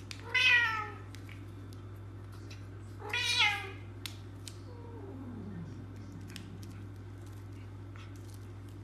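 Domestic cats meowing: two loud, drawn-out meows about three seconds apart, each falling in pitch, then a fainter low call sliding downward about five seconds in.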